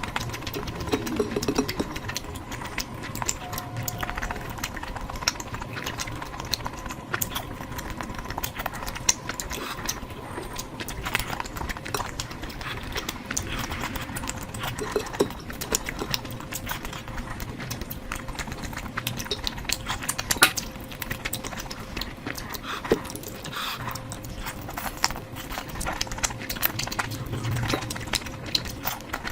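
Close-miked chewing and mouth sounds of someone eating curry: wet smacks and clicks, irregular and continuous.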